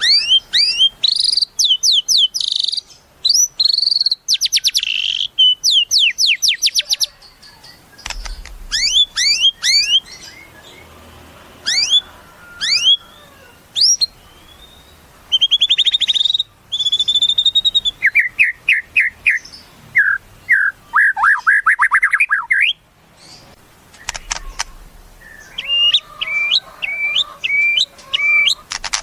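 White-rumped shama (murai batu) singing a varied, loud song: quick series of sharp down-sweeping notes, rapid trills and clear whistles, broken by short pauses.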